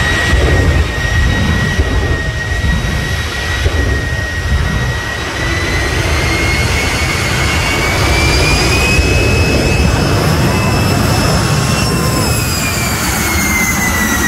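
Jet engine of a jet-powered pickup truck running loudly: a steady high turbine whine over a deep rumble, the whine climbing slowly in pitch through the middle and falling again near the end.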